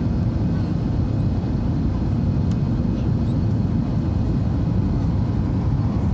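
Jet airliner cabin noise after take-off: the steady low rumble of the turbofan engines and rushing air, heard through the cabin from a window seat over the wing, with a faint steady high tone above it.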